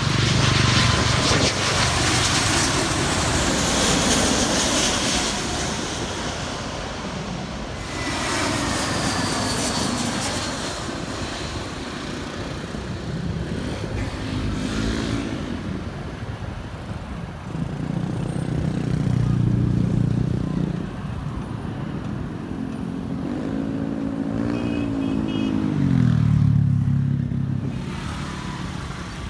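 Twin-engine wide-body jet airliner on low final approach passing overhead, its engines a loud roar with a whine that falls slowly in pitch as it goes by. Road vehicles then pass one after another, their engines rising and falling in pitch, the last one loudest near the end.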